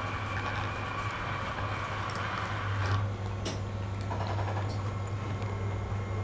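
Cat licking and chewing food from a glass bowl: small irregular clicks of tongue and teeth. Under them runs a steady low hum, and a higher whirring noise stops about three seconds in.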